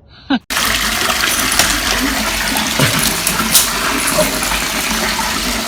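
A brief falling cry, then a loud, steady rushing noise that starts suddenly about half a second in.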